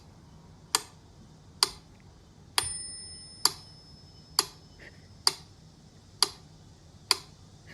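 Sharp, evenly spaced ticks, a little under one a second, with a faint steady high tone running through the middle stretch.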